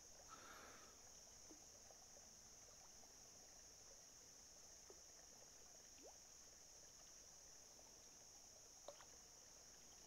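Near silence: a faint, steady, high-pitched insect chorus, with a few faint ticks.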